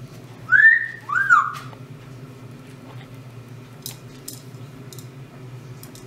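A yellow-headed Amazon parrot gives two loud whistled notes in quick succession, each sweeping up and then falling away. A few faint clicks follow.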